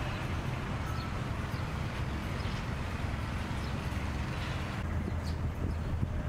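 Railway station ambience: a steady low rumble and hum with faint scattered clicks.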